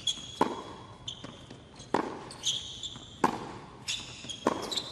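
Tennis rally on a hard court: four sharp racket strikes about every second and a half, with softer ball bounces between them and short high squeaks of tennis shoes on the court surface.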